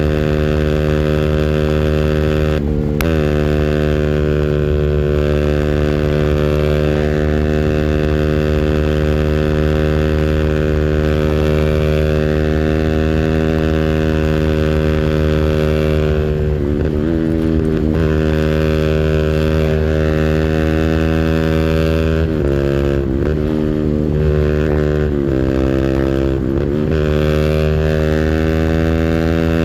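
A 200cc engine held at high revs on its rev limiter, with a steady high pitch. The revs dip briefly and come straight back up about three seconds in, again near the middle, and several times in a row near the end.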